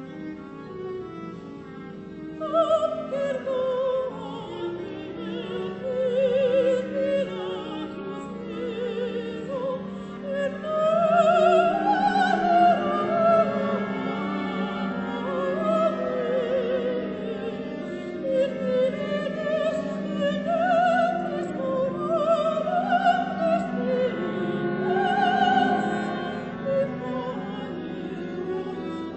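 Classical vocal music: a voice singing slow, sustained lines with wide vibrato over held low bowed-string notes. It starts soft and swells louder a couple of seconds in.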